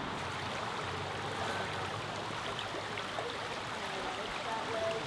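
Steady rush of a small river flowing over rocks.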